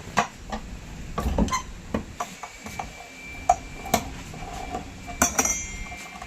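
Metal tools and parts clinking and knocking during a washing-machine gearbox repair: a string of sharp, irregular clicks, with one ringing clink about five seconds in.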